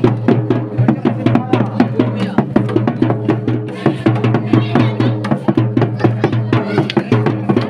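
Folk barrel drum beaten with a stick in a fast, even rhythm, over a steady low tone, accompanying a line dance.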